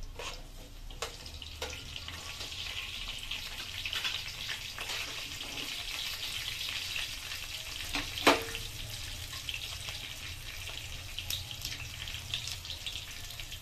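Tempering spices (cumin seeds and split chana dal) frying in hot oil in a kadai: a steady crackling sizzle. A few clicks near the start and one sharp click about eight seconds in.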